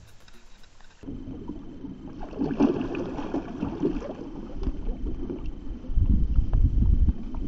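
Lake water sloshing and splashing against the side of a boat as a hand stirs the water at the surface. A stronger low rumble of wind on the microphone comes in near the end.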